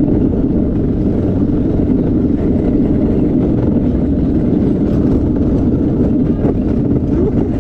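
Gravity luge cart rolling down a concrete track: a loud, steady rumble from its wheels.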